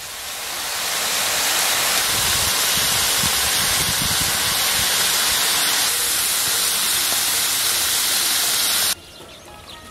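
Hot stir-fried chili-and-garlic sauce sizzling with a steady hiss as it is ladled over stewed oxtail. The hiss builds over the first second and cuts off sharply about a second before the end.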